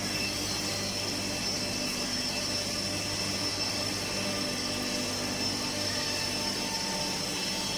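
Woodworking machinery of a double end tenoner production line running steadily, a constant low hum with a thin high whine over it.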